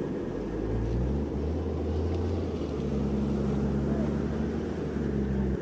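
Vehicle engines running with a steady low rumble and hum that shifts in pitch a couple of times.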